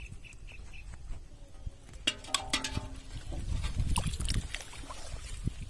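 A fish clattering into a thin aluminium bowl about two seconds in, the bowl ringing briefly, followed by water sloshing as the bowl is pushed through the shallow river water.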